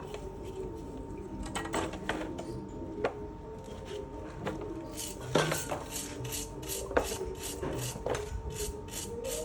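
Metal parts clinking and knocking during hand work on an engine, then a steady back-and-forth rubbing at about three to four strokes a second.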